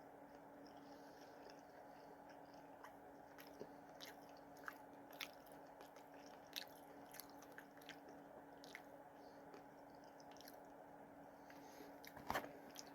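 Faint chewing and crunching of fried pickle fries, with scattered soft crunches and a few louder ones near the end, over a steady low hum.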